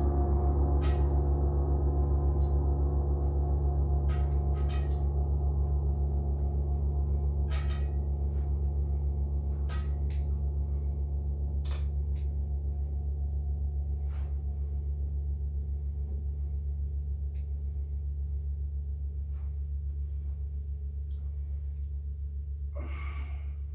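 A large gong's long ring slowly dying away: a deep hum with a shimmer of higher tones that fade first. A few faint clicks come through it, and a short rustle near the end.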